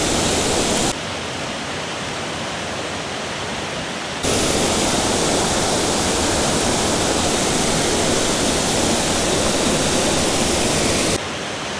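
Steady rush of a small waterfall pouring over a low stone dam into a shallow creek. The level drops abruptly about a second in, comes back up about four seconds in, and drops again near the end.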